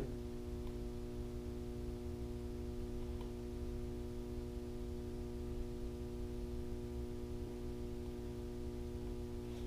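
A steady electrical hum with a low rumble underneath, unchanging in pitch and level.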